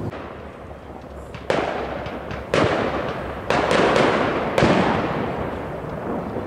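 Aerial fireworks bursting: four loud bangs about a second apart, each trailing off slowly.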